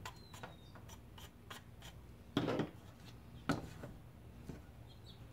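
Handling sounds of metal tools on a tabletop: a run of light clicks, then two louder knocks about two and a half and three and a half seconds in, as a hand works the alligator clip of a helping-hands stand holding a wire.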